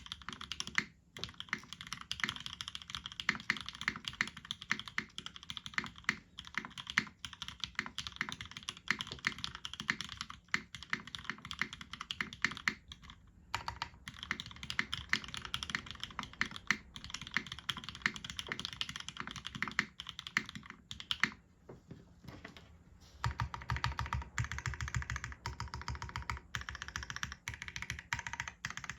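Continuous typing on an RS60 mechanical keyboard with retooled Cherry MX Black linear switches on an aluminum full plate and GMK keycaps: a dense run of keystroke clacks. There are brief pauses about a second in and near the middle, and a longer lull about three quarters of the way through, after which the strokes sound deeper.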